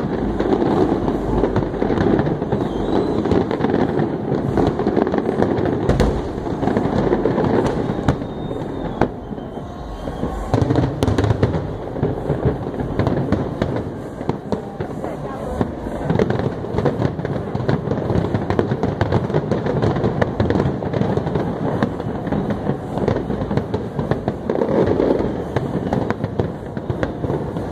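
Fireworks display: a continuous barrage of shell bursts, with bangs and crackling overlapping throughout.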